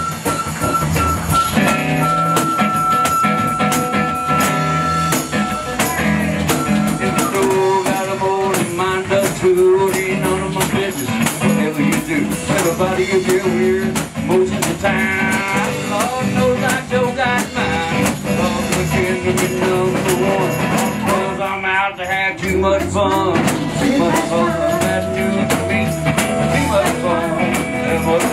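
Live blues-rock band playing an instrumental break. A flute holds one long high note for the first several seconds, then melodic lead lines run over strummed acoustic guitar, electric guitar and drums.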